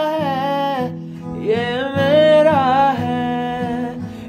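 Background music: a Hindi song with long held sung notes over acoustic guitar.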